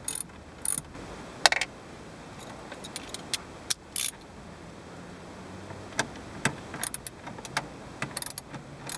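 Scattered sharp metallic clicks and clinks at irregular gaps from a 7 mm socket ratchet on an extension being worked on small dash-bezel bolts.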